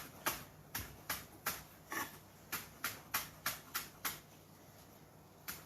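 Knife chopping fresh chives on a chopping board: quick, even taps about three a second, stopping about four seconds in, with one more tap near the end.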